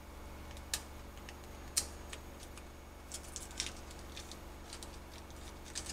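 Foil wrapper of a Knorr vegetable-and-herb stock cube being unwrapped by hand: scattered crinkles and sharp ticks, bunched together about three to four seconds in, over a steady low hum.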